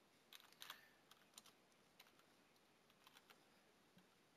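Faint typing on a computer keyboard: about a dozen quick, irregular keystrokes.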